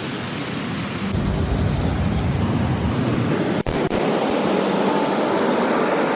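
Rushing water of a waterfall: a steady, dense noise that gets louder about a second in and drops out for an instant a little past halfway.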